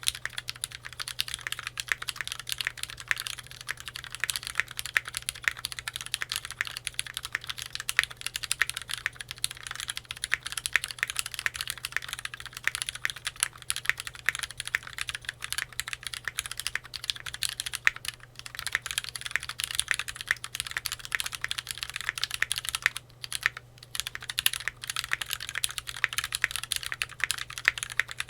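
Typing on a Keychron Q3 tenkeyless mechanical keyboard with a steel plate and lubed Cherry MX Black Hyperglide linear switches: a fast, continuous clatter of keystrokes with a couple of brief pauses about two-thirds of the way through.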